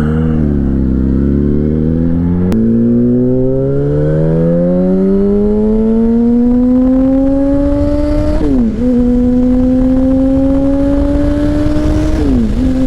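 Yamaha R1 sportbike's inline-four engine accelerating hard under load. Its pitch climbs steadily through one gear, drops sharply with an upshift about eight and a half seconds in, then climbs again and drops at a second upshift near the end.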